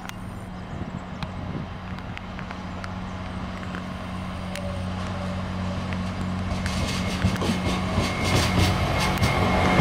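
Slovenian Railways class 713 diesel multiple unit pulling away and approaching, its diesel engines running with a steady low drone that grows louder. From about two-thirds of the way through, wheel clicks and rail noise join in as it nears.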